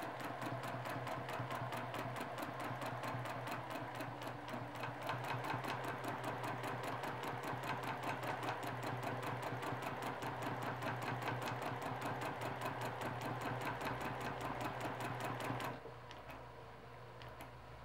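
Domestic sewing machine stitching steadily in free-motion quilting: a rapid, even run of needle strokes over a low motor hum. It stops shortly before the end, leaving only a faint hum.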